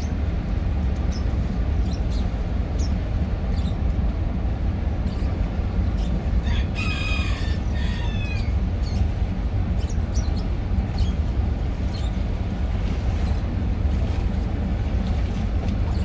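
A rooster crows once, about six and a half seconds in, a falling call lasting about two seconds. Short high chirps come and go throughout, over a steady low rumble.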